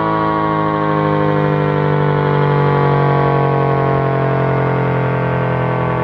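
American Signal T-135AC outdoor warning siren sounding its steady alert tone. It is a loud chord of several pitches that slides slowly lower in pitch.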